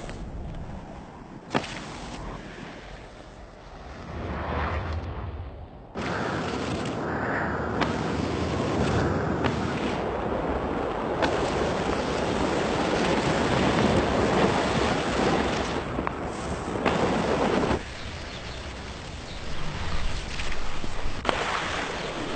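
Skis sliding fast over sand with wind noise on the microphone. The noise changes suddenly at the cuts between shots and grows louder from about six seconds in, as the skis rush down the dune.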